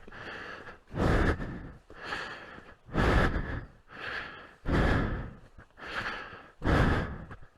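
A man breathing heavily in a steady rhythm, about one breath every two seconds, each loud breath followed by a softer one, as though winded from climbing a steep, loose slope on foot.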